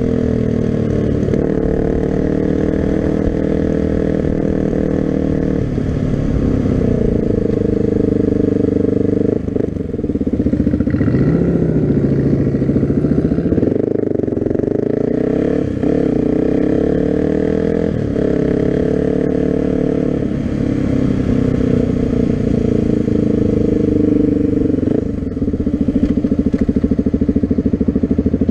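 Suzuki DR-Z250's single-cylinder four-stroke engine running at road speed, the revs climbing and falling through several gear changes. About ten seconds in the throttle briefly closes and the revs sink slowly for a couple of seconds before picking up again.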